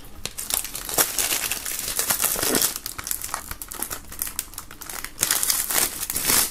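Clear plastic shrink-wrap being peeled and pulled off a CD Super Jewel Case, crinkling and crackling throughout, loudest in a burst near the end.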